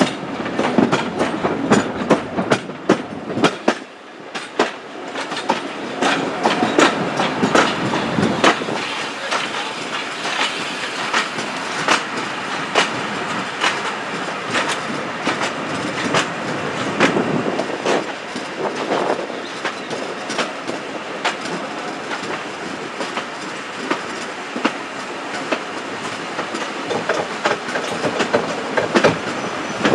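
Wheels of a vintage railway coach running on the track, clicking repeatedly over rail joints and pointwork, with the steady rumble of the moving train.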